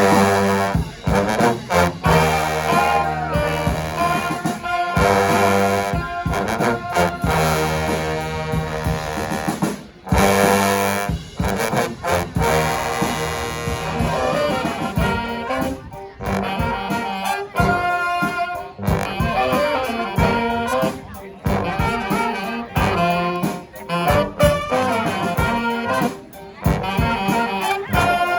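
Brass band playing live, with trombones, trumpets and other horns together in a loud ensemble.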